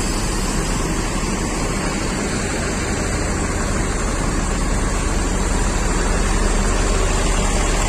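Steady rumble of a bus engine running close by, growing slightly louder toward the end.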